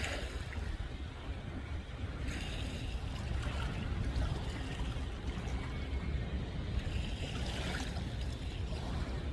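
Wind rumbling on the microphone over water lapping at the shore.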